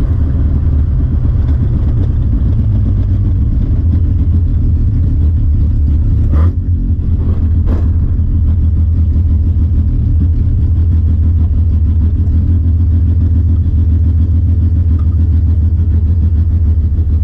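Van engine running while driving, heard from inside the cab: a loud, steady low rumble, with two short knocks a little before halfway.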